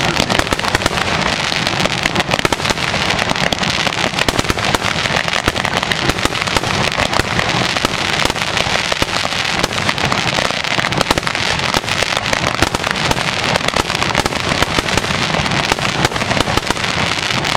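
Fireworks crackling without pause: a dense, steady stream of small rapid pops and crackles from crackling-spark effects, with no single big bang standing out.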